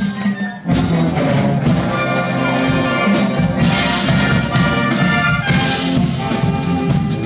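Concert wind band playing brass-heavy music with drums. The band breaks off for a moment about half a second in, then comes back in together at full volume.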